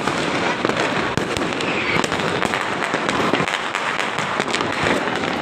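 Many fireworks and firecrackers going off at once all around: a dense, unbroken crackle of overlapping pops and bangs.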